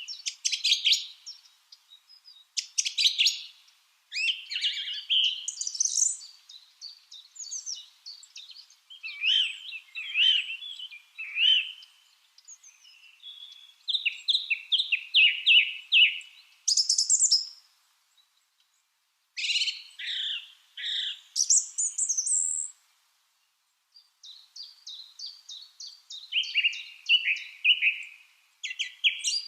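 Lovebirds chirping in bursts of sharp, high chirps and quick runs of falling notes, with short pauses between bursts.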